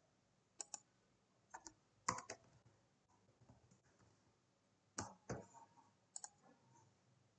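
Sparse clicks of a computer keyboard and mouse: about seven short sharp keystrokes and clicks in loose groups, the loudest about two seconds in, over quiet room tone.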